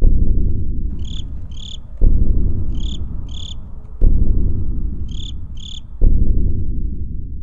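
Credits sound design: a deep low boom every two seconds, each fading out slowly. From about a second in until about six seconds, pairs of short high chirps repeat about every two seconds over a faint hiss.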